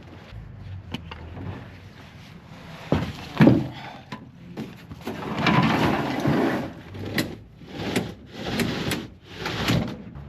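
Handling at a parked car: clicks and knocks, a loud thump about three and a half seconds in, then rustling and a run of short knocks near the end, like a door or hatch being opened and gear moved about.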